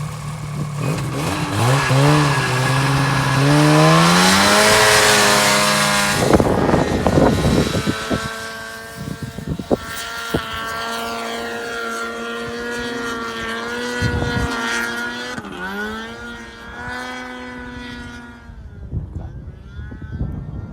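Ski-Doo snowmobile engine revving up, with a loud rush of noise about four to six seconds in. The engine then holds a steady high pitch, dips and climbs again once around fifteen seconds, and grows fainter near the end.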